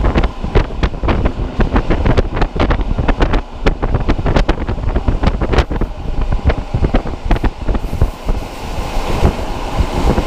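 Wind from a moving train blowing hard on a camera microphone held at the carriage window, loud, with frequent sharp crackles. Near the end the crackles thin out into a steadier rushing hiss.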